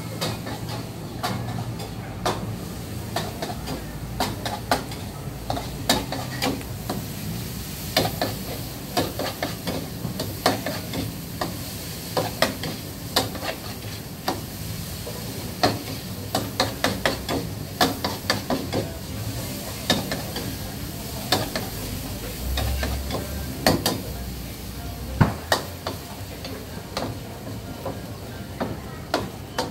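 A metal spatula scraping and clanking against a wok in frequent, irregular strokes as noodles are stir-fried, over the steady sizzle of the hot wok.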